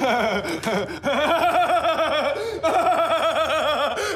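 Men laughing loudly in long runs of quick ha-ha pulses, broken by two short breaths.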